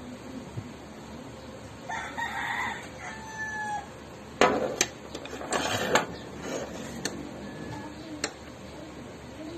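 A rooster crows once, a single drawn-out call about two seconds in. Then come sharp metallic clanks as a metal hand lemon squeezer is set down and opened, with the loudest knock about halfway through.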